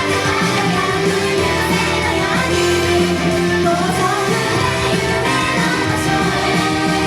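Japanese idol pop song performed live, with singing over a loud, steady band backing.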